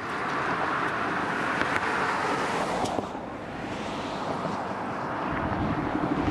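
A road vehicle passing: a rush of tyre and engine noise that swells and then eases off. Another vehicle sound builds near the end, with a low hum.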